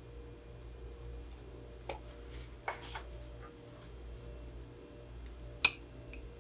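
A few small clicks and taps over a low steady hum, with one sharp, louder click a little before the end.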